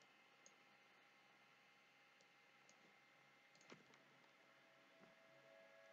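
Near silence: faint room tone with a few soft computer mouse clicks, the loudest about three and a half seconds in.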